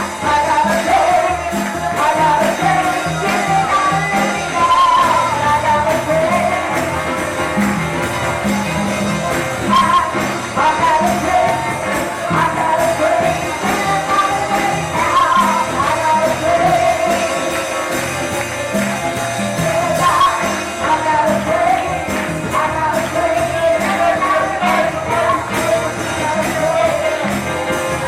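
Church worship music: a band playing with a steady beat, voices singing over it and a tambourine shaking throughout.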